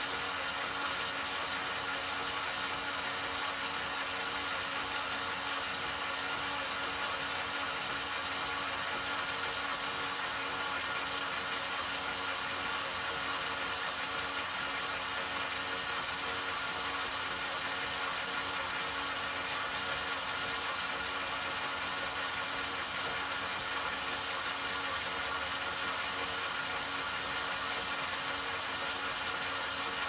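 Motor of an enMotion automatic paper towel dispenser running continuously, a steady mechanical hum with several held pitches that do not change.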